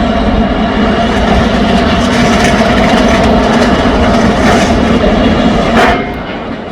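A mobile rubble-recycling machine that crushes demolition rubble into finer material runs loudly, with a steady engine tone under the rattle and crackle of broken concrete and stone going through it. The sound drops sharply about six seconds in.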